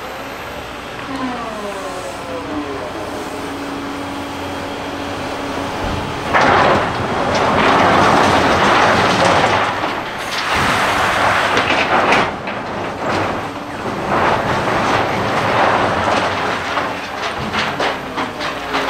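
Liebherr LH60 material handler running, its engine and hydraulics whining with a pitch that rises and falls as it slews. About six seconds in, a loud crunching rattle starts and keeps going, with sharp knocks: the 3 cubic metre clamshell grab is biting into aggregate in a steel rail wagon, stones grinding against the grab and the wagon.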